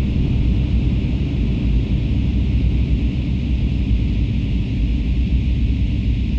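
Experimental electronic drone music: a dense, steady low drone with a fainter band of hiss above it, with no beat or melody.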